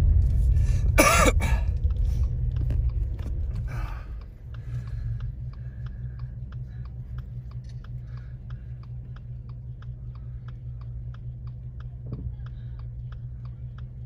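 Car's tyre and road rumble dying away about four seconds in as it comes to a stop, then the turn-signal indicator ticking steadily, a little over two clicks a second, over the engine's low idle. A person clears their throat loudly about a second in.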